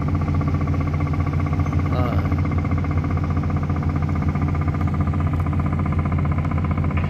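Boat's diesel engine running steadily at cruising speed: a low, even drone.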